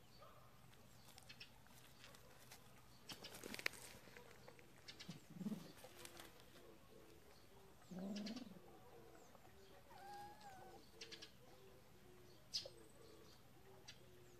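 Faint scuffling on gravel: a kitten pawing at a dead mole, with small scrapes and clicks of stones. Behind it a faint low call repeats about twice a second through the second half.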